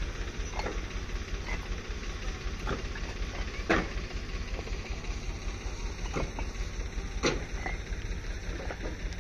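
Fired clay bricks clinking and knocking against each other as they are handled and stacked, in scattered sharp clacks, the loudest a little under four seconds in and again about seven seconds in, over a steady low rumble.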